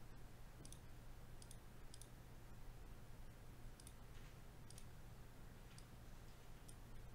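Near silence: faint sharp clicks, roughly one a second with a longer pause near the middle, over a low steady hum.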